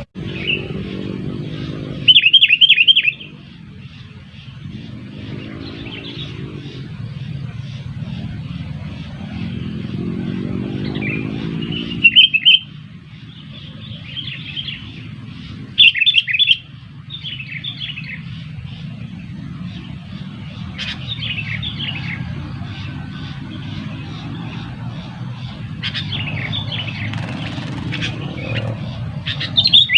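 Sooty-headed bulbuls calling: short bursts of quick, bright chirping notes, loudest about two seconds, twelve seconds and sixteen seconds in, with softer calls between. A steady low rumble runs underneath.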